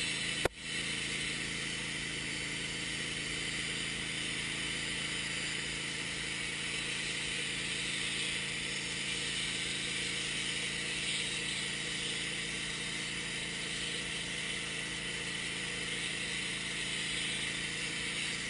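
Wood-Mizer LT15 portable bandsaw mill running steadily under load, its gas engine driving the band blade through a log during a one-inch cut. There is a sharp click about half a second in.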